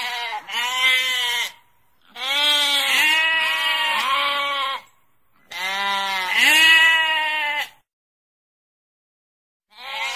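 Sheep bleating: a two-part quavering call, then two long bleats of about two and a half seconds each, and another call starting near the end.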